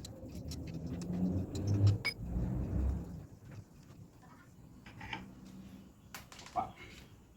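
Small metallic clicks and knocks of an Allen key working a bolt out of the exhaust manifold on a two-stroke motorized-bicycle engine. A low rumble runs through the first three seconds, loudest around two seconds in.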